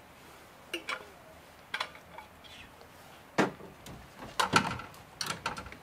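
Scattered clinks and knocks of dishes, utensils and kitchen gear being handled at a camper's outdoor camp kitchen, the loudest about three and a half and four and a half seconds in.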